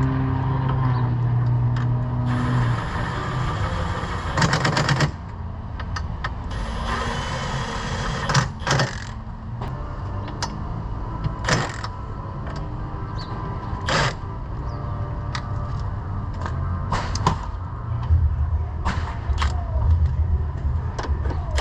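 Workshop sounds of a steel roll cage being fitted: scattered sharp metal knocks and clanks over a steady low hum, with a power tool whirring briefly twice a few seconds in.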